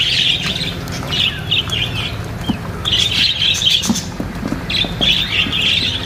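A flock of small parrots chattering and squawking in dense, overlapping bursts that keep coming.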